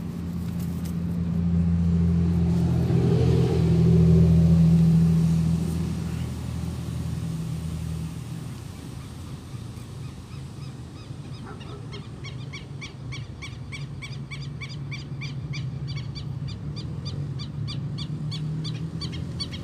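Low steady hum of a passing engine that swells to its loudest about four seconds in, then fades but lingers. From about twelve seconds in, an animal's rhythmic high chirps, about three a second, join it.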